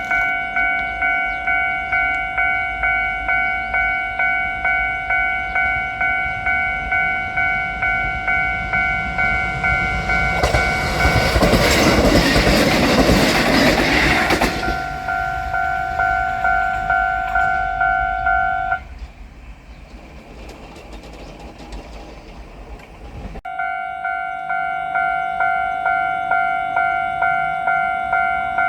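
Japanese level-crossing warning bell ringing in a steady repeating clang. About ten seconds in, a Kotoden train passes loudly for about four seconds. The bell stops a few seconds later, then starts again suddenly near the end.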